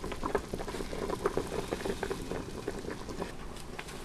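Broth in a stainless stockpot of corned beef and vegetables bubbling at a simmer: many small irregular pops and plops.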